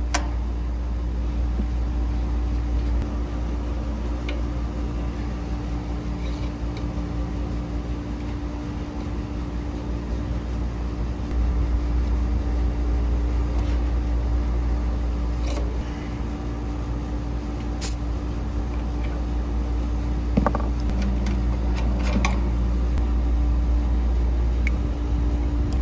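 Steady mechanical hum over a low rumble, with a few light metallic clicks from brass valve core removal tools being turned on the condensing unit's service valves as the Schrader cores go back in.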